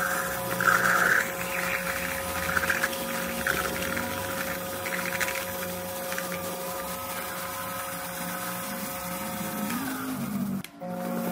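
Small metal lathe running with a steady motor hum while a twist drill bores into the spinning aluminium blank. Gritty cutting noise comes in bursts during the first few seconds. The motor's pitch wavers about ten seconds in, and the sound cuts out briefly just before the end.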